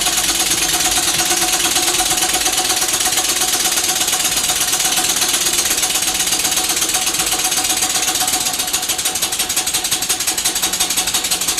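Handmade scale-model steam engine running fast on compressed air, its exhaust beats and moving parts clattering in a quick, even rhythm. It gets a little quieter about two-thirds of the way through.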